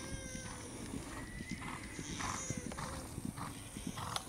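Hoofbeats of a horse cantering on dry grass, a steady stream of dull thuds, with a regular puff of breath about every half second in time with the stride.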